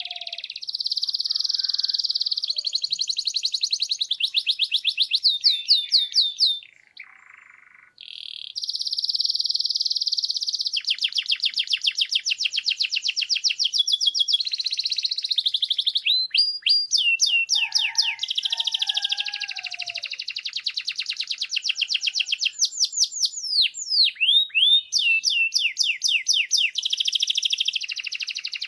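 A caged canary singing a long song of fast trills, each phrase a rapid run of repeated high notes that changes every second or two. There is a short break about seven seconds in, and sweeping whistled notes in the second half.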